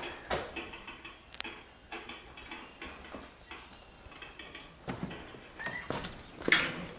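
Footsteps in an uneven walk, a string of irregular knocks and scuffs, with a short squeak near the end and a louder knock just after it.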